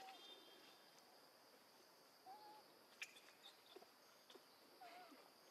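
Three short single-pitch calls, spaced about two and a half seconds apart, faint against a quiet outdoor background, with one sharp click about three seconds in.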